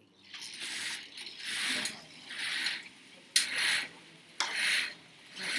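Window blinds being drawn shut: a rasping pull about once a second, two of them starting with a sharp click.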